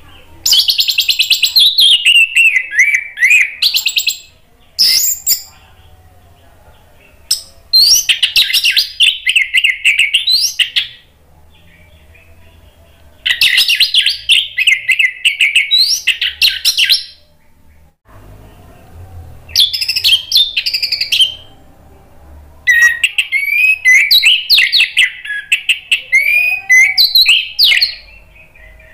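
Orange-headed thrush (anis merah) singing: five bursts of rapid, varied high notes separated by short pauses, the last burst the longest.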